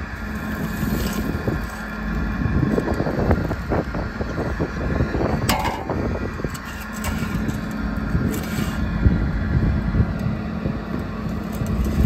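Wind buffeting the microphone as a heavy low rumble, over a steady low hum, with scattered light knocks and one sharp metallic clink about five and a half seconds in.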